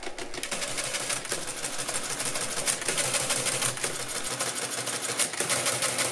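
Electric Mercedes Euklid Model 21 mechanical calculator running an automatic division: its motor-driven mechanism clatters steadily with fast, dense clicking.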